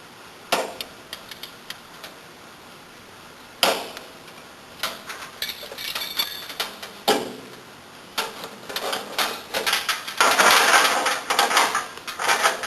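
Metal clicks, knocks and clatter of a wrench and small fittings being handled while a brass compression fitting on an air line is tightened. The sharp knocks are spaced several seconds apart, and a denser run of rattling clicks comes near the end.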